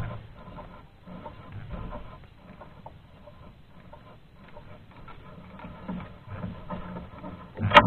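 Fishing handline being hauled in by hand over the side of a small boat: faint, irregular rubbing and rustling of the line. There is a dull thump at the start and a sharp knock near the end.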